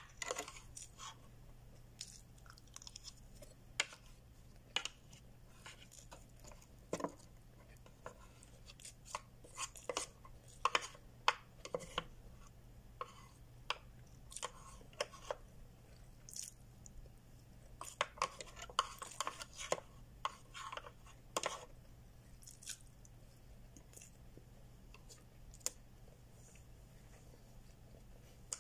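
Eating sounds: a plastic spoon and fork clicking and scraping against a plastic bento tray in irregular taps, with chewing between, over a faint steady low hum.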